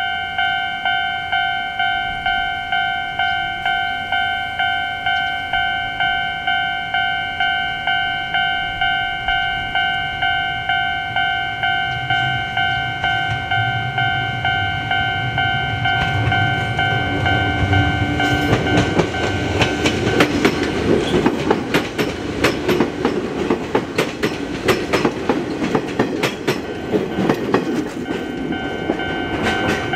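Level-crossing warning bell ringing at about two strokes a second while an Izuhakone Railway Sunzu Line electric train approaches and passes. Its rumble builds from about twelve seconds in, and its wheels click over the rail joints through the second half.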